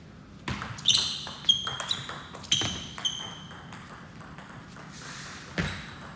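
Table tennis ball in a short rally, clicking off the bats and the table: about seven sharp, ringing pings over roughly two and a half seconds. The rally stops, and a single dull thump follows near the end.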